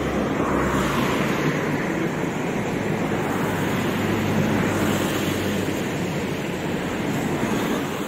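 Steady noise of heavy construction machinery running, with a low engine hum underneath.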